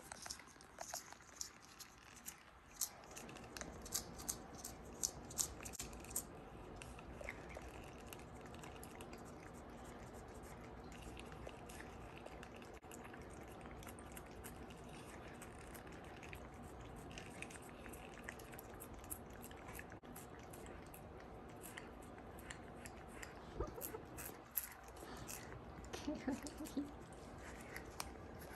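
A cat chewing: quick, faint crunching clicks in two bouts, in the first few seconds and again near the end, over a steady low hum.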